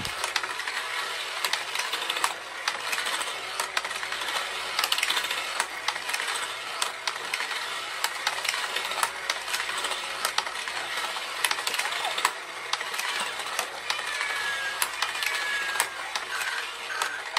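Battery-powered children's slide-track and fishing-pond toy running: a steady plastic clatter and rattle of small figures clicking along the track, over the motor turning the fish pond.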